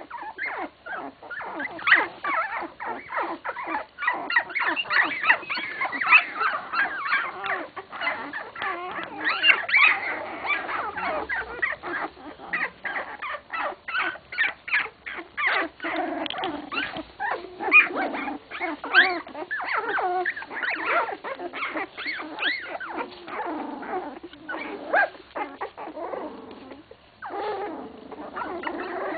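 A litter of 16-day-old English Cocker Spaniel puppies whimpering, with many short, high calls that bend in pitch and overlap almost without a break. There is a brief lull near the end.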